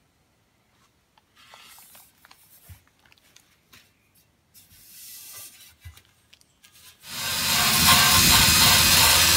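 Quiet rubbing and handling of a steel motorcycle mudguard, then about seven seconds in a cordless drill with a sanding attachment starts up. It runs loud and steady against the metal, stripping old paint back to bare steel.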